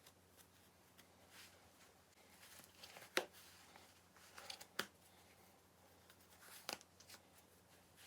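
Faint handling noise: soft rustling with three sharp taps or clicks, about three, five and seven seconds in.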